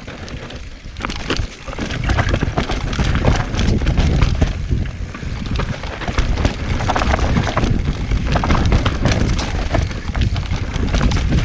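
Mountain bike ridden down a rough, chunky stretch of trail. There is a steady low rumble of wind on the microphone, and a constant run of sharp clicks and knocks from the tyres hitting rock and the bike rattling. The rumble gets louder about a second and a half in.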